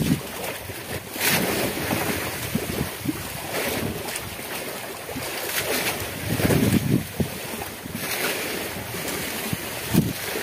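Wind gusting across the microphone over the steady wash of open-sea waves, with stronger low gusts a few times.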